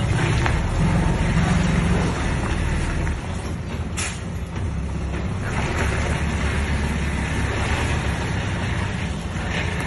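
Dump truck's diesel engine running under load as the truck pulls away and then reverses, strongest in the first two seconds, with a brief sharp noise about four seconds in.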